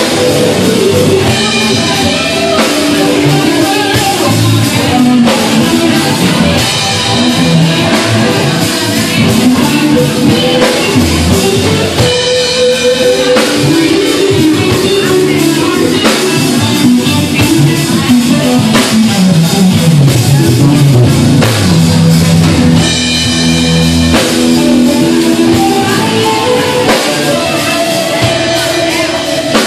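Live rock band playing loud: a Strat-style electric guitar through a Marshall amplifier over a drum kit. About two-thirds of the way through, a line slides down in pitch over several seconds.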